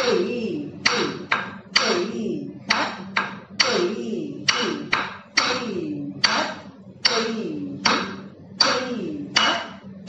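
Rhythmic beat-keeping for a Bharatanatyam adavu (Kudhithu Mettu Adavu): sharp percussion strikes that ring on, about one and a half a second, some in quick pairs, each with a chanted syllable that falls in pitch.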